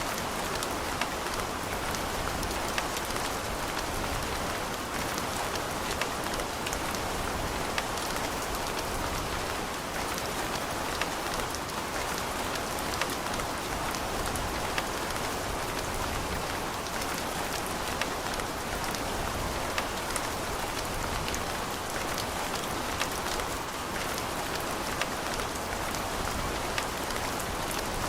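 Steady rain falling on hard surfaces, a dense even hiss with many distinct drop ticks throughout.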